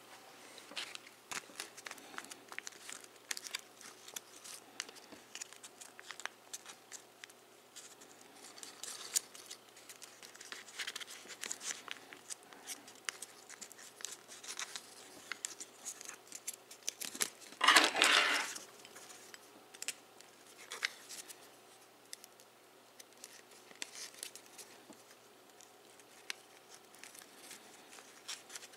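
Foil origami paper crinkling and creasing under the fingers as it is folded, with many small clicks and scrapes. A louder rustle lasting about a second comes about two-thirds of the way in.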